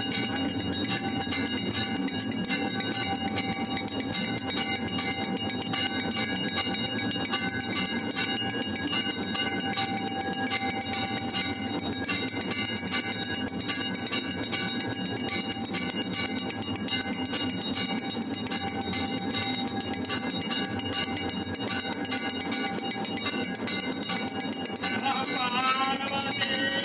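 Temple bells ringing continuously in a dense, steady clangour for the aarti worship. Near the end a voice comes in over the bells.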